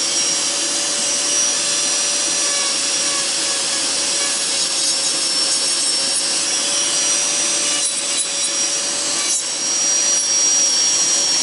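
Electric nail drill (e-file) with a milling bit grinding old gel colour off a fingernail: a steady high motor whine over rasping, with the hum of a tabletop nail dust extractor. It dips briefly twice, about eight and nine and a half seconds in.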